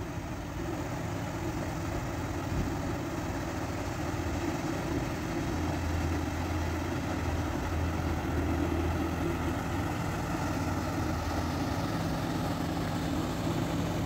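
Engine of a river push boat driving a barge convoy past: a steady low drone that grows slowly louder as the convoy comes by.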